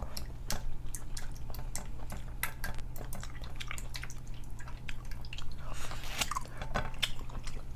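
Close-miked wet eating sounds from a butter-sauced seafood boil: chewing and lip smacking with many sticky, wet clicks coming at irregular intervals.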